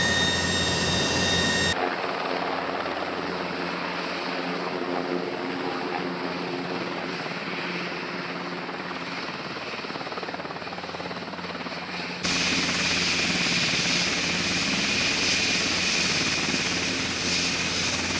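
KUH-1 Surion twin-turboshaft helicopter running: steady turbine whine and rotor noise that changes abruptly about two seconds in and again about twelve seconds in, the middle stretch fuller in low tones and the last louder and hissier.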